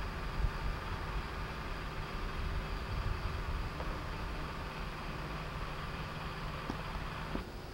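Steady outdoor background rumble and hiss, with irregular low rumbling, that drops off abruptly near the end.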